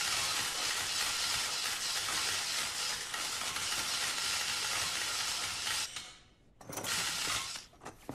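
Dense, continuous barrage of press camera shutters and flashes clicking. It cuts off about six seconds in, then a shorter burst follows about a second later before it dies away.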